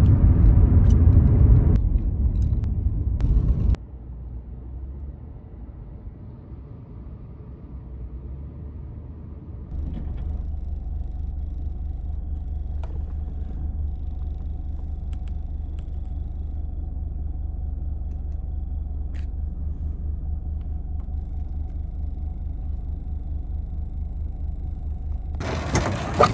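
A car driving, heard from inside the cabin: a steady low rumble of engine and road noise. It is loudest for the first few seconds, steps up again about ten seconds in, and a rush of wind-like hiss comes in near the end.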